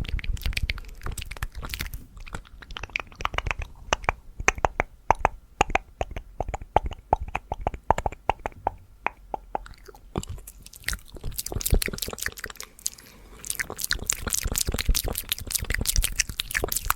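Fast ASMR mouth sounds close to the microphone: rapid wet clicks, pops and tongue smacks in quick succession, several a second. About halfway through they turn into a run of hollow, pitched pops, then denser crisp clicking near the end.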